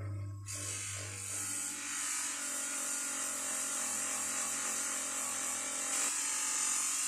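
Power tool running steadily against metal, a continuous high whirring hiss, as the metal is polished. A low hum underneath stops about a second and a half in.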